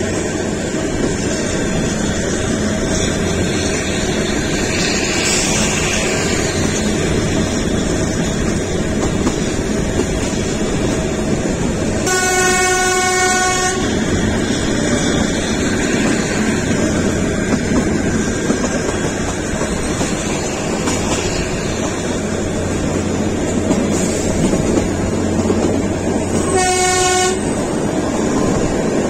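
Kalka–Shimla narrow-gauge toy train running with a steady rumble and wheel clatter. Its horn sounds twice: a blast of under two seconds about twelve seconds in, and a shorter one near the end.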